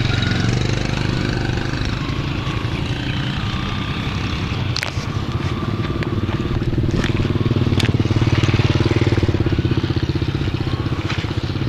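A motor running steadily with a low, fast-pulsing hum, a little louder about eight seconds in, with a few sharp clicks over it.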